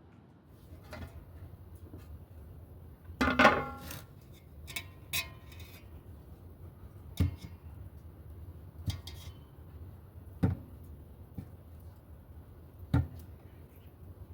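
Kitchenware being handled: a loud ringing clatter of dishes about three seconds in, then single knocks and clinks every couple of seconds.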